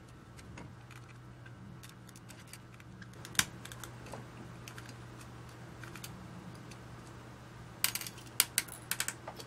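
Small plastic and metal clicks and rattles as a black aircraft panel switch module and its loose wires are handled and prodded by hand. There is one sharper click a few seconds in and a quick cluster of clicks near the end, over a faint steady low hum.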